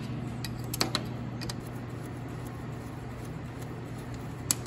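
A few scattered sharp metal clicks and clinks, the loudest near the end, from a wrench on the nuts and bolts as an Allis-Chalmers WD45 tractor's PTO housing is worked loose and lowered. A steady low hum runs underneath.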